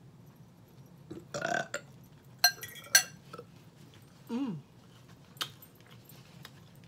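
A person burping after a meal, once about a second in and again near the middle, the second lower and falling in pitch. In between, two sharp clinks of a metal fork against a glass bowl, the loudest sounds.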